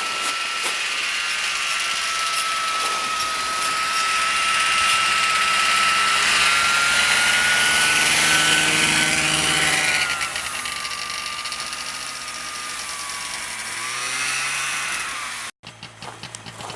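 Small engine running with a high steady whine, building up over the first ten seconds and then easing off; the sound breaks off abruptly near the end.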